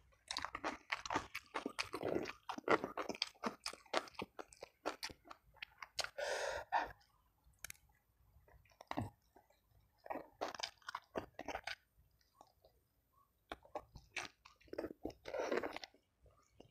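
Close-up crunching and chewing of crispy fried chicken and rice, in bouts with a couple of short pauses.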